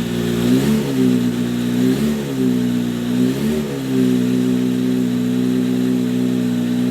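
Kawasaki Z H2's supercharged 998 cc inline-four engine idling, blipped three quick times in the first four seconds, then settling back to a steady idle.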